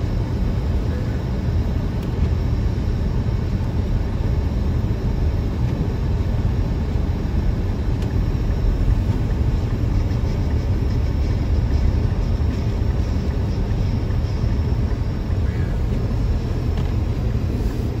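Steady low rumble inside a moving car's cabin: engine and tyre noise while driving along a snow-covered road.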